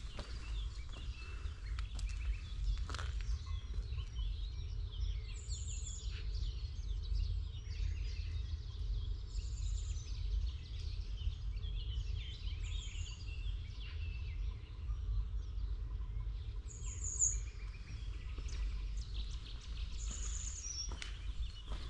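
Small birds chirping and twittering, with short high calls every few seconds, over a steady low rumble. Now and then a faint footstep.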